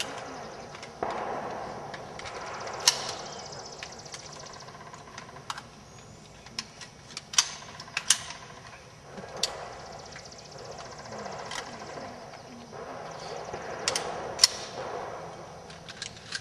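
Scattered sharp cracks and clicks at irregular intervals, the loudest about three seconds in, around seven to eight seconds, and near the end, over a steady outdoor background: rifles being handled on the firing line of a high power rifle range.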